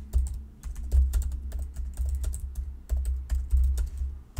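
Typing on a computer keyboard: a fast, uneven run of key clicks, each with a dull low thud, in short bursts with brief pauses between them.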